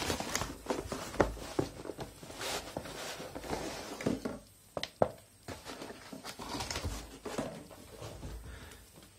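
Irregular rustling and light clicks and knocks of a laptop charger brick and its power cord being handled and laid down on a fabric cloth, with a quieter pause about halfway through.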